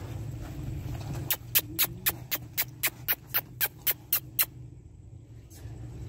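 A rapid series of about a dozen sharp, evenly spaced clicking chirps, about four a second, lasting about three seconds, over a low rumble.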